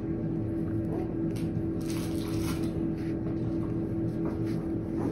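A ballpoint pen scratching briefly on paper as a number is written, over a steady low hum.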